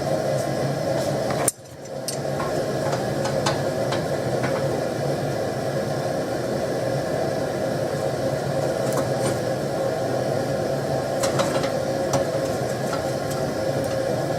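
Gas forge burner running with a steady rushing noise, heating strip steel, with occasional light metallic clicks. About a second and a half in the noise drops out abruptly and builds back within half a second.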